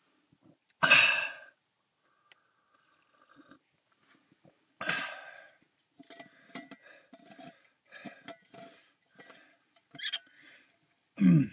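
A man gives loud breathy exhales after sips of water. Small clicks and scrapes follow as he threads the screw lid back onto an insulated mug, and a short voiced grunt comes near the end.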